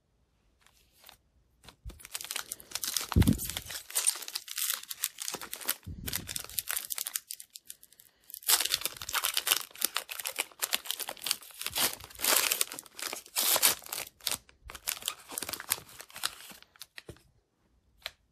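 Foil hockey card pack being torn open and crinkled by hand: a long run of crackling rips and crinkles, with a short pause partway through and two dull bumps in the first half.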